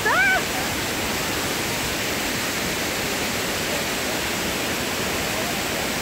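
The Shaki waterfall's falling water, a steady, even rush that does not change.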